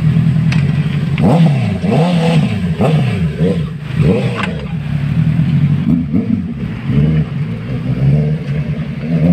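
Honda CB650R inline-four engine and exhaust revving: a steady note, then from about a second in the pitch rises and falls several times in quick succession before settling into steadier running.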